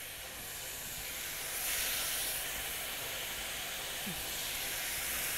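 Marinated meat sizzling on a hot ridged grill plate: a steady hiss that swells slightly about two seconds in.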